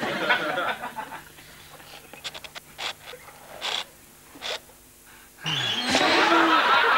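Studio audience laughing. The laughter fades in the first second, leaving a few short knocks, then breaks out loudly about five and a half seconds in, with a sharp thump as the sofa bed folds up on the man.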